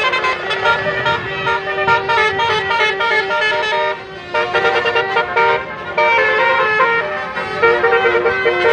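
Telolet multi-tone horn on an Indonesian bus playing a quick tune of shifting notes, with a couple of short breaks in the middle.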